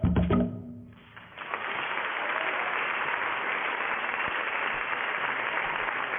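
A percussion-driven dance track ends with a last few beats, and after a brief lull an audience breaks into steady applause.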